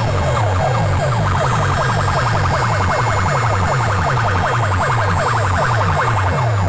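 DJ dance track with a rapid, repeating siren-like falling sweep over a steady pulsing heavy bass beat.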